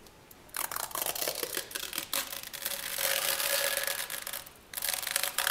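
Protective plastic film being peeled off a surface in a long crackling pull, starting about half a second in, with a faint squeal partway through and a brief break near the end before a second pull.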